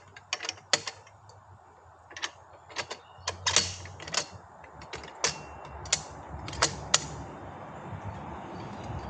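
Metal parts of a Rabaconda portable tire changer being fitted and adjusted during assembly: a string of irregular sharp clicks and clanks, the loudest a handful of knocks in the middle, with a steady low rumble underneath toward the end.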